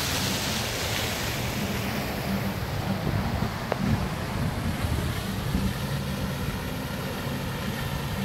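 Wind buffeting the microphone, an irregular low rumble over a steady rushing noise.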